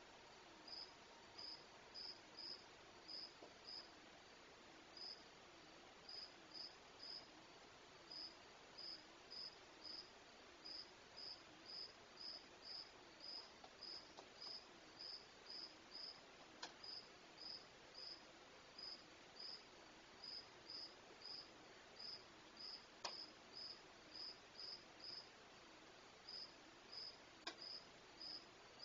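A cricket chirping in a steady rhythm, about two short high chirps a second. Three faint clicks come through, and a faint wavering hum sits underneath.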